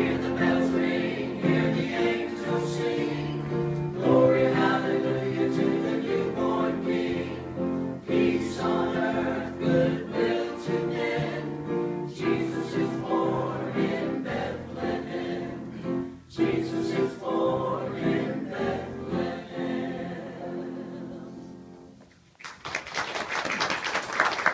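Church choir singing a gospel song in full harmony. Near the end the final chord fades out and applause breaks out.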